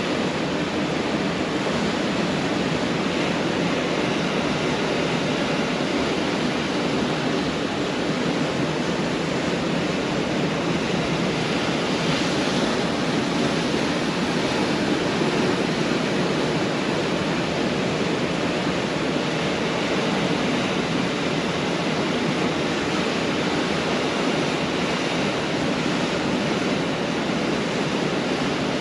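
Pacific Ocean surf breaking on a beach: a steady, dense rush of waves with little rise and fall.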